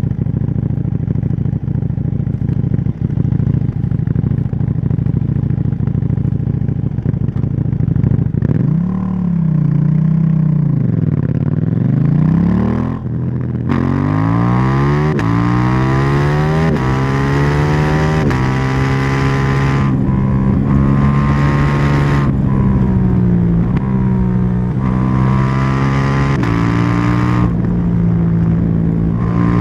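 KTM 790 Duke's parallel-twin engine running at a steady low pitch, then revving up and back down about nine seconds in. After a short break, it pulls hard with the pitch climbing several times, then settles into steadier running with a few brief dips.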